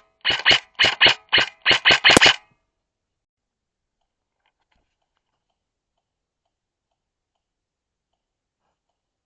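Airsoft electric gun firing about ten sharp shots in quick succession, roughly three or four a second, then the sound cuts out abruptly after about two and a half seconds.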